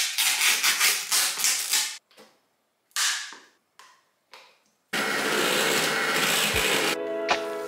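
Rustling and scraping as mascarpone is opened and scooped out of its plastic tub into a plastic bowl, a few separate scrapes and knocks. Then, about five seconds in, an electric hand mixer runs steadily in the bowl, beating the mascarpone. Soft background music starts near the end.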